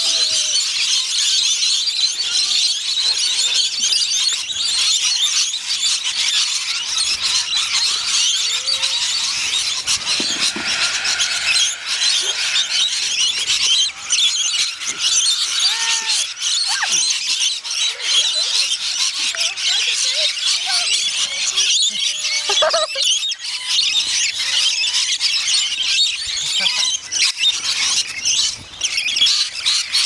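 A large flock of rainbow lorikeets screeching without pause while they feed, many shrill voices overlapping into one high, steady chatter.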